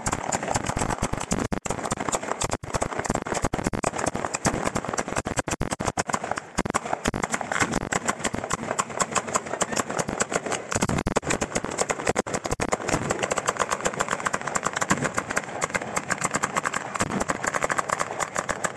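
Ground-level fireworks battery firing a continuous, rapid string of sharp bangs and crackles, many reports a second with no pause.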